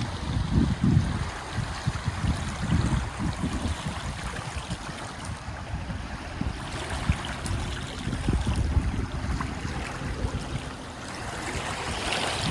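Wind buffeting the microphone in irregular gusts over lake waves washing against the shore.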